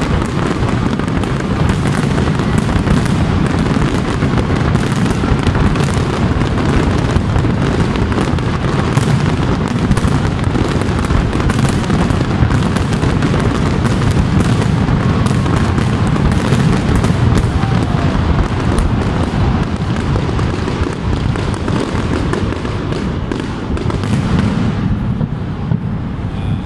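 A large fireworks display going off in a dense, continuous barrage: many overlapping bangs and crackles over a deep rumble. The crackle thins out near the end.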